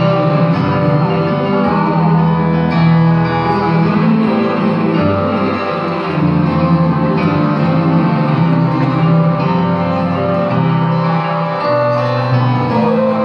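Live band playing an instrumental passage with guitars to the fore, over bass and keyboard, heard from the audience in a concert hall.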